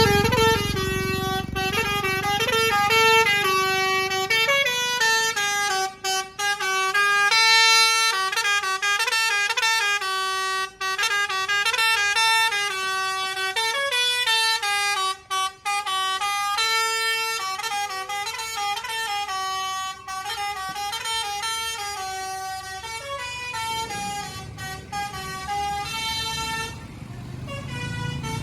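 Basuri 'telolet' multi-tone air horn on a tourist bus playing a melody, its notes stepping up and down with a few brief breaks. The horn stops near the end as vehicle noise rises.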